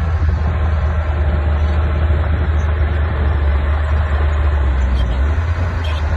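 Diesel engine of a heavy earthmoving machine running steadily, a deep, even drone.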